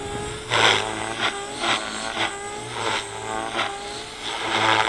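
Electric OXY 4 RC helicopter in flight: its motor and rotor whine rises and falls in pitch over a steady low hum. Several short bursts of rushing noise come through.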